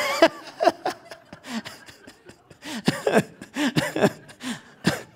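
A man laughing in a string of short, irregular bursts.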